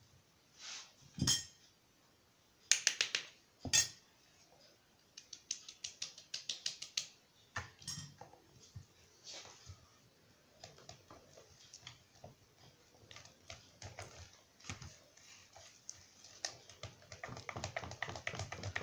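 Metal wire whisk beating flour into cake batter in a plastic bowl, its wires clicking against the bowl in quick rhythmic runs. A few sharp knocks of a metal spoon on the dishes come in the first few seconds, as a spoonful of flour is added.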